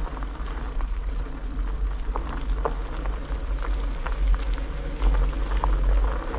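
Bicycles riding on a gravel road, heard from a moving bike: a steady low rumble of wind and road vibration, with scattered clicks and ticks of gravel under the tyres.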